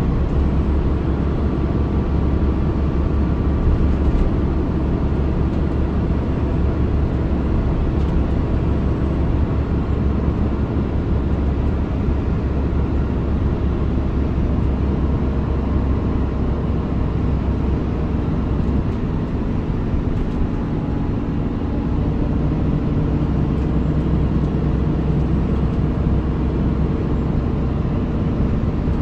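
Volvo B7RLE city bus's six-cylinder diesel engine running steadily with a deep rumble. About two-thirds of the way through, the engine note changes: the deepest part of the rumble drops back and a slightly higher tone comes up.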